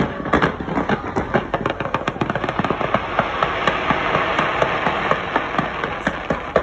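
Fireworks going off in rapid succession: many sharp pops and bangs, thickening into a continuous crackle around the middle.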